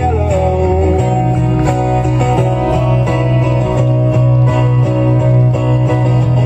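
Guitar music with a steady bass line; the bass note changes about a second in, and some notes slide in pitch.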